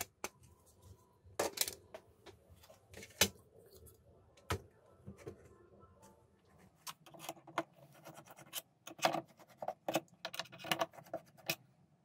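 Scattered clicks, taps and light scraping as a square computer fan and a plastic louvred vent-flap frame are handled and set together on a table. A few isolated knocks at first, then a busier run of small clatter from about seven seconds in.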